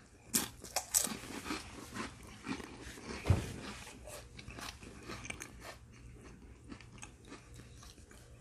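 A person chewing a mouthful of saltine cracker topped with a sardine: crisp crunches, loudest in the first few seconds, then softer chewing.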